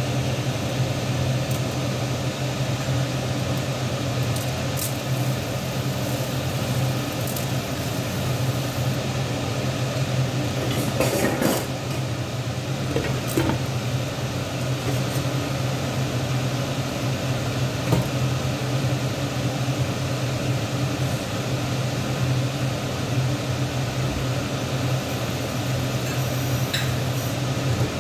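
A steady machine hum throughout, with a few light clinks and knocks of kitchen utensils and dishes being handled, the loudest near the middle.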